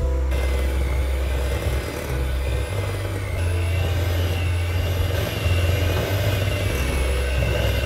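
Electric hand mixer running in a glass bowl, its beaters creaming butter and sugars; the motor's whine wavers slightly in pitch as the beaters work through the thick mixture.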